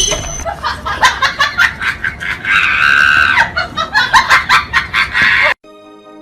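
A voice laughing loudly in quick bursts, with a sustained high scream about three seconds in. It cuts off suddenly near the end, leaving a much quieter steady tone.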